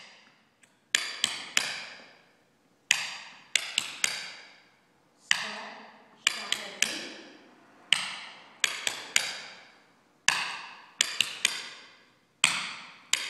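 Tap shoes striking a wooden floor in repeated single buffalo steps (step, shuffle, leap): clusters of three or four sharp taps, a cluster every second or two, each tap ringing out briefly.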